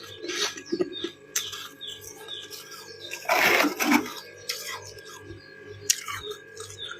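Freezer frost and thin ice crackling and crunching close to the microphone, with sharp little clicks throughout and one louder, longer crunch lasting nearly a second about three seconds in.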